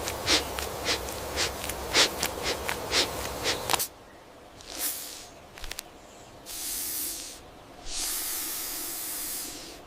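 Dry leaf litter crackling and rustling. After a sudden cut, a snake hisses three times: one short hiss, then a hiss of about a second, then a longer one of about a second and a half.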